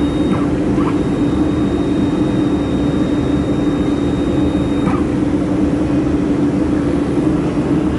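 Laser mold welding machine running with a steady, loud hum, and a thin high whine that breaks off briefly near the start and stops about five seconds in with a small click.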